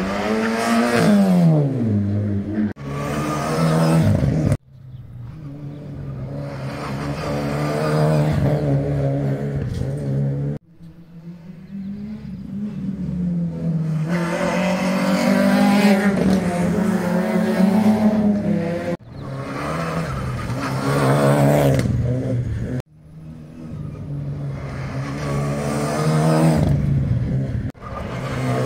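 Rally cars at full throttle on a stage, engines revving hard and climbing in pitch through gear changes, one car's pitch falling as it passes. It comes as a string of short passes that start and stop abruptly, about half a dozen in all.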